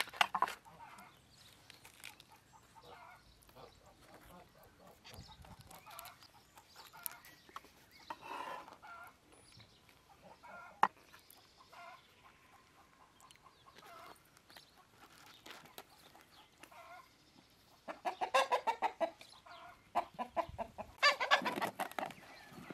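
Chickens clucking, with two loud bouts of rapid clucks near the end and fainter clucks before them. A few sharp clicks sound in between.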